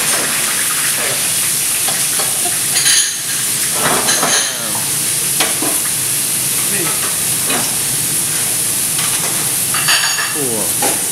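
Beef sirloin and fillet searing in hot seed oil in a frying pan, a steady loud sizzle, with a few brief louder clatters as the meat is turned in the pan about three to four seconds in and near the end.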